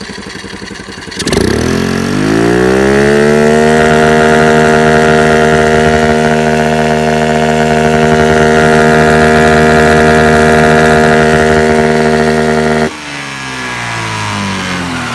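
Honda Activa scooter's single-cylinder engine, fitted with an open aftermarket power filter, idling, then revved up about a second in. It is held at steady high revs for about nine seconds, then the throttle is let go near the end and the revs fall back toward idle.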